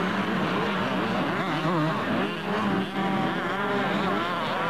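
Several motocross bikes' engines revving on the track, their pitch rising and falling as the riders open and close the throttle over the jumps, overlapping one another.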